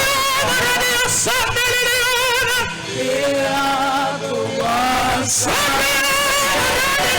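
Gospel praise song sung live with instrumental accompaniment: a voice holds long notes with a wavering vibrato over the music.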